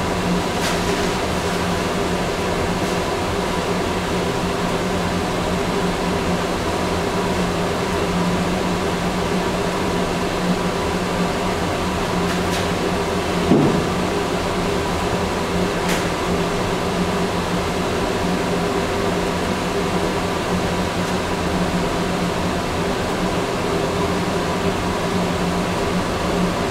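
Steady hum of a ventilation fan, with a few faint light clicks and a soft knock about halfway through.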